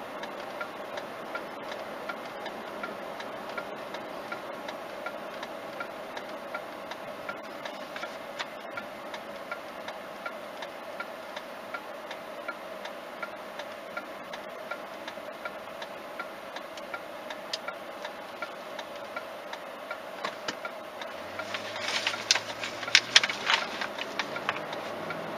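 Car turn-signal indicator ticking steadily inside the cabin over low road noise as the car slows. Near the end the engine note rises as the car pulls away, with a few louder sharp clicks and rattles.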